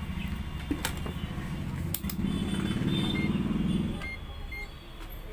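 Low engine rumble of a motor vehicle, swelling for a couple of seconds in the middle and then fading, with two sharp clicks in the first two seconds.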